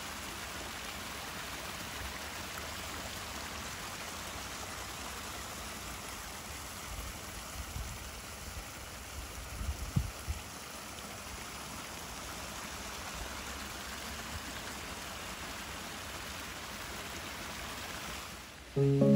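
Small garden waterfall splashing over rocks into a pond: a steady rush of running water, with a few low thumps about halfway through.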